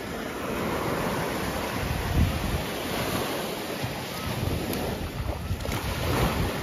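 Ocean surf washing on a beach, with wind buffeting the microphone in gusts.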